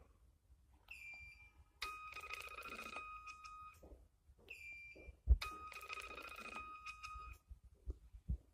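An electronic tone signal: a short high beep, then a steady two-pitch tone with a pulsing texture lasting about two seconds. The pair sounds twice, about three and a half seconds apart, with a sharp click where the second long tone begins.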